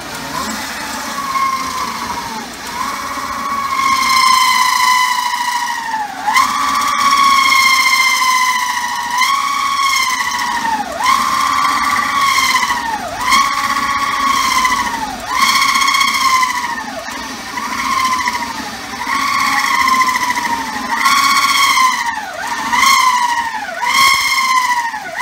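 Hole saw on a drill press cutting through a thin brass crash cymbal, the cymbal ringing with a loud, high squeal. The squeal swoops down in pitch and climbs back roughly every two seconds as the cutter bites.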